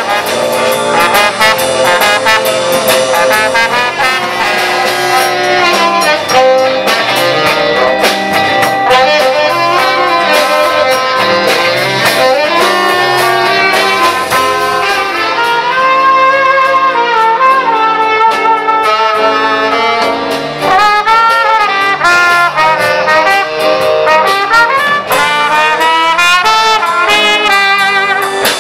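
Small live band playing jazz-style music: saxophone and trombone carry the melody over guitar and drums.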